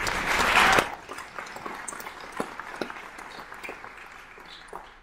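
Audience applauding: a burst of clapping, loudest in the first second, then thinning out and dying away near the end.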